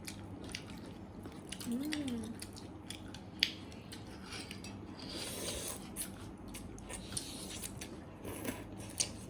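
Close-miked eating: chewing and biting, with scattered sharp clicks of a fork or utensil against the dish.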